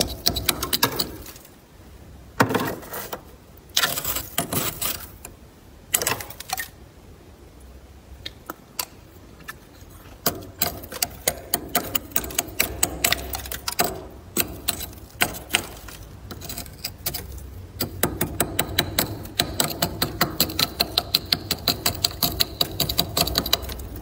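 Thick freezer frost being scraped: crisp crunching scrapes, with a few longer, louder scrapes in the first six seconds, then a fast, even run of short strokes toward the end.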